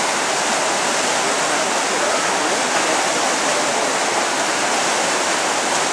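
Whitewater rapids on a canoe slalom course, rushing steadily.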